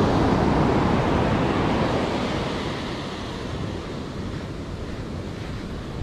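Ocean surf washing up the shore in a steady rush, loudest for the first couple of seconds and then easing off.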